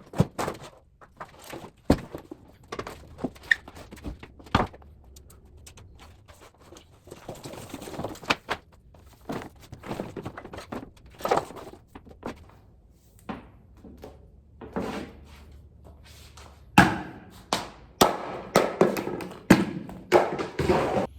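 Objects being handled and set down while sorting clutter: scattered knocks and thunks with rustling in between, then a busy run of clattering knocks near the end.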